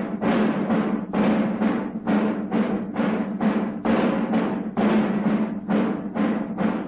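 Massed military drums beating a steady rhythm, about two to three strokes a second.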